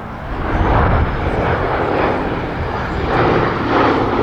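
Boeing B-17 Flying Fortress's four radial piston engines droning in a display pass, swelling louder about half a second in.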